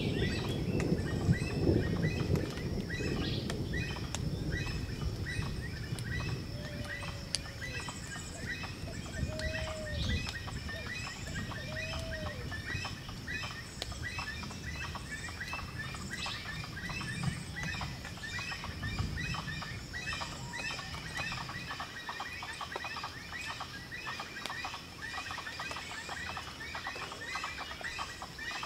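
Outdoor natural ambience: many small high bird chirps throughout over a steady high tone, with three short, arching low calls a few seconds apart in the first half. A low rumble in the first part fades out.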